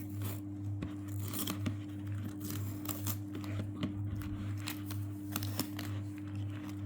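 Tape being peeled off a 4x4 Rubik's cube, with scattered crinkles and small clicks from handling the cube, over a steady low hum.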